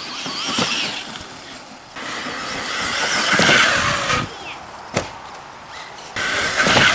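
HPI Vorza brushless electric RC buggy's motor whining in surges as the throttle is worked, rising and falling in pitch. There is a single sharp knock about five seconds in.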